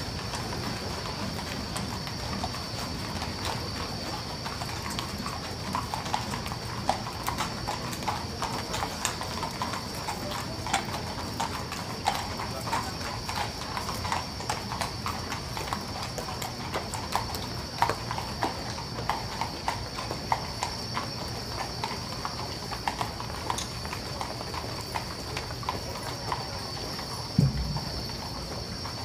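Horses' hooves clip-clopping irregularly on the asphalt road as the horses walk past, over a steady high-pitched whine. One low thump near the end is the loudest sound.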